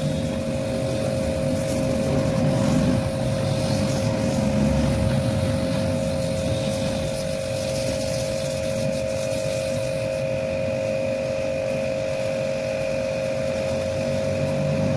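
Small electric pressure-washer pump running with a steady whine, with the hiss of its water jet as the AC coil is washed for servicing. It cuts off abruptly near the end.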